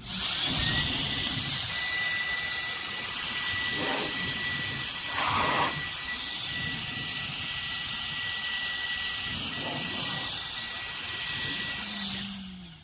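CCV electric air duster running: a loud, steady rush of blown air with a constant high-pitched motor whine. It starts abruptly and cuts off about twelve seconds in.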